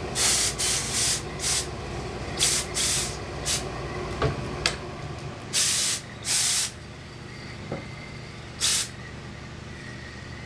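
Professional hose-fed steam iron giving about ten short blasts of hissing steam into a mink fur coat, some in quick succession, over a steady low hum.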